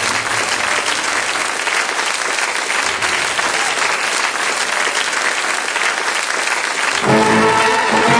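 Audience applauding, with music starting up about seven seconds in.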